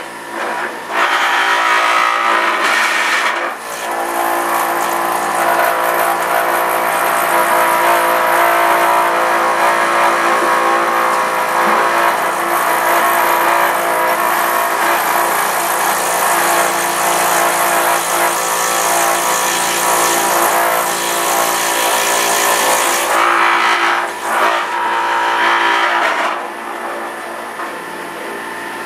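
Electric juicer running under load, its motor whining steadily as spinach is pushed down the feed chute and shredded. It dips briefly a couple of times and runs a little quieter in the last few seconds.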